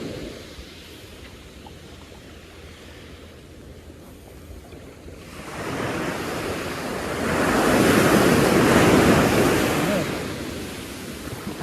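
Ocean surf on a sandy beach: quiet wash at first, then a wave swells and breaks from about halfway through, loudest a few seconds later, and fades near the end.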